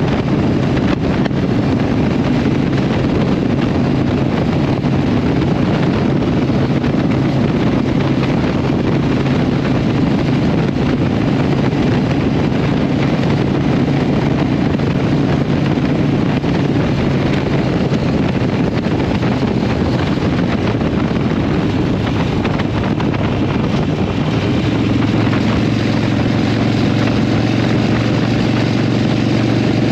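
Harley-Davidson Iron 883 Sportster's air-cooled 883 cc V-twin running through Vance & Hines aftermarket pipes, held steady at cruising speed. Near the end the engine note changes as the bike rolls off and slows.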